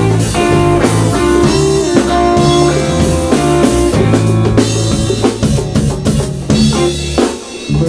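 Live rock band playing: electric guitar over electric bass and drum kit. About seven seconds in the bass and drums drop away and the sound thins.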